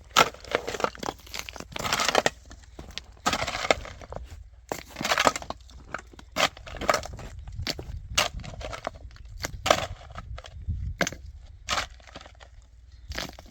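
Irregular crunching and crackling noises, short sharp cracks mixed with longer crunches, coming at uneven intervals.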